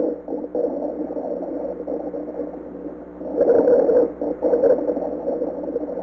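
Recorded lung sounds: breathing with coarse crackles, a bubbling, crackling rattle that swells with each breath, loudest at the start and again about three and a half seconds in. Coarse crackles are the sign of secretions or fluid in the larger airways.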